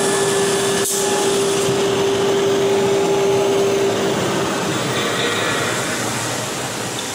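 APEXTECH double-spindle CNC wood router running: a steady mechanical noise with a high steady tone that stops about four seconds in. A single sharp click about a second in.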